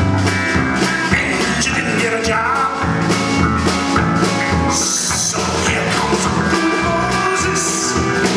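Indie rock band playing live: drum kit keeping a steady beat under electric guitars, bass and keyboard.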